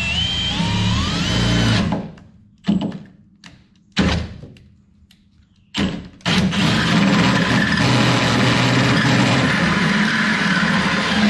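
Cordless drill driving a hole saw into the side wall of a Ram truck's RamBox. The motor whines up in pitch and cuts for about two seconds, then stops. It gives three short bursts and then cuts steadily from about six seconds in.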